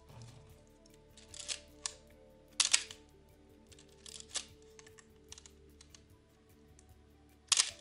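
Canon AE-1 35mm SLR worked by hand: a series of mechanical clicks from its shutter and film-advance lever, with two loud sharp clacks, one about two and a half seconds in and one near the end, and smaller ratcheting clicks between. Soft background music underneath.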